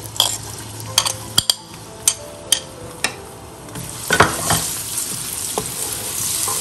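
Minced shallots and garlic sizzling in hot oil in a wok, stirred with a wooden spatula, with a dozen or so sharp taps against the pan in the first half. The sizzle grows fuller and steadier after about four seconds as the aromatics fry.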